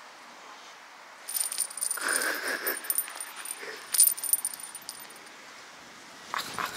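Light rattling and jingling of small hard objects. It starts about a second in, runs for a couple of seconds, comes again in a sharp burst around four seconds in, and returns briefly near the end.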